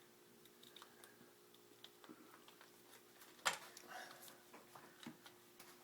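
Faint clicks and rustles of plastic refrigerator door parts being handled and pressed into place, with one sharp click about three and a half seconds in and smaller clicks after it.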